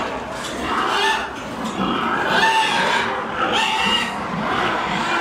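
Many pigs squealing and grunting together in a pig shed, a continuous overlapping din.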